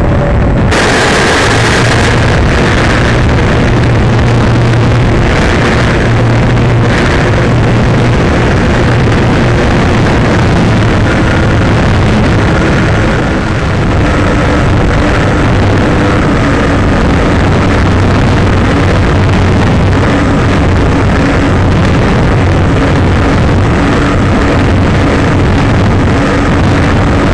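Brushless electric motor and propeller of a Multiplex Moviestar RC plane running in flight, a steady hum and whine whose pitch shifts up and down a little, heard through the onboard camera with heavy wind rush on its microphone.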